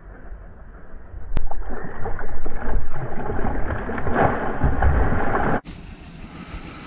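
A hooked fish thrashing and splashing at the water's surface as it is played on a rod, starting about one and a half seconds in and cutting off suddenly about a second before the end.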